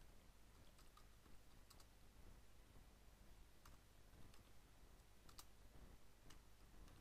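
Faint computer keyboard typing: about ten soft keystroke clicks at an irregular pace, over low steady background noise.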